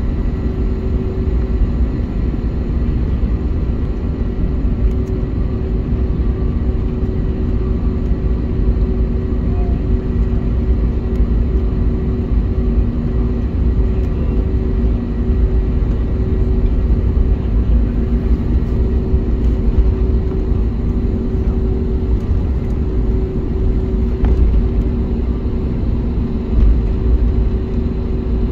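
Airbus A321neo cabin noise heard from a window seat while the airliner taxis: the engines at low taxi power give a steady low rumble, with a couple of steady droning hums over it.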